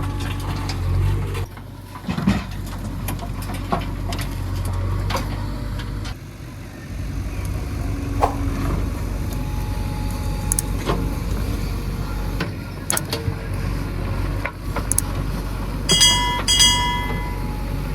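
Heavy diesel machinery engine running, rising and falling in load, with scattered knocks and clanks. Near the end come two short horn beeps.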